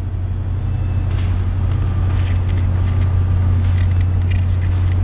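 Steady low hum of a container ship's machinery heard on the enclosed navigation bridge, with faint clicks and rustles from the camera being handled.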